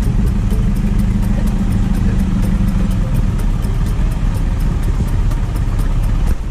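Engine of an open safari game-viewing truck running steadily, heard from on board, with a low hum that drops away about three seconds in.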